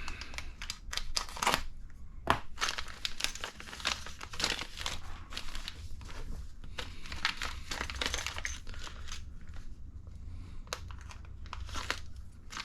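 Plastic kit parts bag being torn open and crinkled by hand, an irregular run of crackles and rustles.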